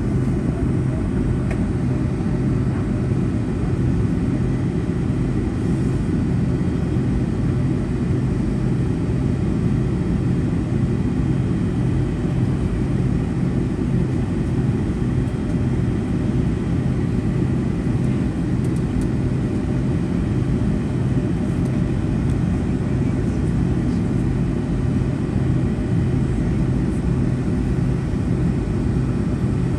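Steady low rumble of a Boeing 757-200 heard from inside the passenger cabin while the aircraft is on the ground after landing, with a constant hum beneath it.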